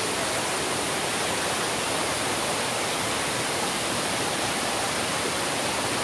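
Steady rush of a waterfall and the stream below it, water pouring over boulders.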